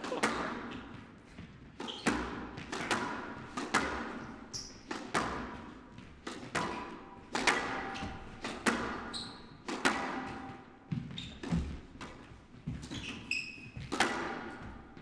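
Squash rally: the ball cracks off the rackets and the walls about once a second, each hit echoing. Now and then there is a short high squeak of shoes on the court floor.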